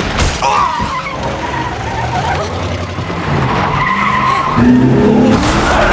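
Car engine running hard and tires squealing as a car skids, with wavering high screeches over a low engine rumble, loudest in the second half.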